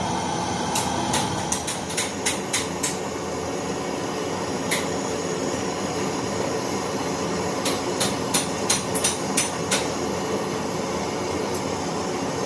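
Gas torch burning with a steady hiss. Two runs of light sharp taps, about three a second, come through it, from about a second in and again from about eight seconds in.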